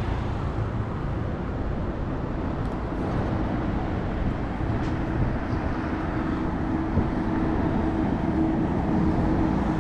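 Road traffic on a wide city avenue: a steady wash of vehicle and engine noise. A steady low engine hum comes in about three seconds in and grows a little louder toward the end.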